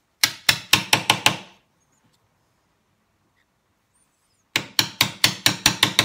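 Mallet striking a chisel, chopping out the waste of half-blind dovetail sockets in a wooden drawer front. A quick run of about six blows, then after a pause of about three seconds another run of about eight.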